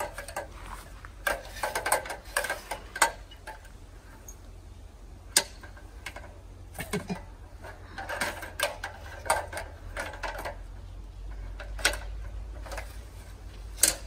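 Folding multi-purpose ladder-scaffold being reconfigured by hand: irregular clusters of clicks, knocks and rattles as its hinges, locks and metal parts are moved and set.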